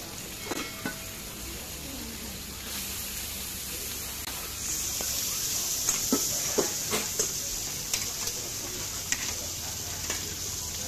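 Meat sizzling on a hot flat-top griddle, a steady hiss that grows louder about five seconds in, with metal tongs clicking against the griddle and steel pans a dozen or so times.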